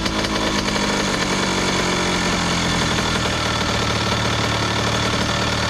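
2001 Honda CR80's two-stroke single-cylinder engine idling while its idle screw is being set, the idle dropping from too high to a lower speed about halfway through.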